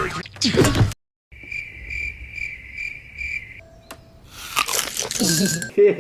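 Cricket chirping: five evenly spaced high chirps, about two a second, filling a lull; cartoon squeals and noises are heard before and after.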